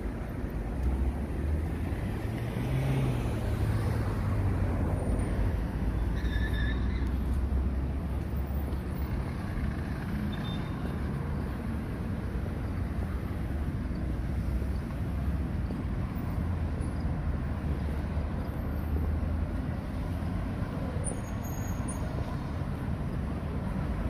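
Street traffic: a steady low rumble of cars passing on a nearby road, a little louder in the first several seconds.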